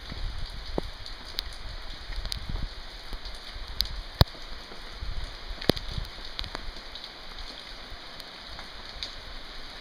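Steady rain hissing on wet pavement, with scattered sharp taps of single drops landing close by; the two loudest taps come about four and five and a half seconds in.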